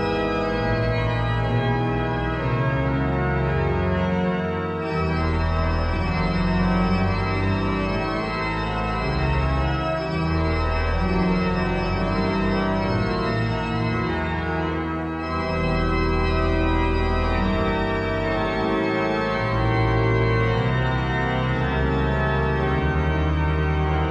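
Refurbished sanctuary pipe organ playing a full, many-voiced piece, with sustained chords over deep bass notes that change about every second.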